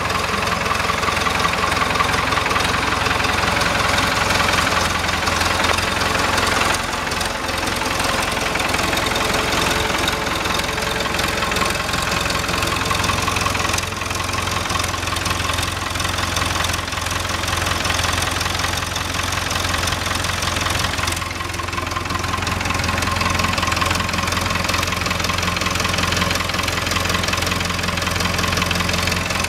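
Nuffield 10/60 tractor's BMC diesel engine running steadily, freshly overhauled.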